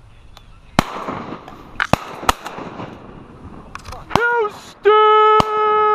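Shotgun shots at passing ducks, about five scattered through the span, some sharp and close, others fainter. Near the end, a loud, long, high call held on one pitch.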